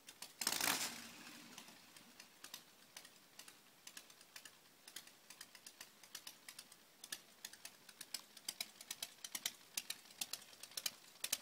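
A kick-start stroke on a Harley-Davidson chopper about half a second in, heard as a short loud clattering thump. It is followed by a run of sharp, light clicks that come faster from about halfway on, without the steady beat of a running engine.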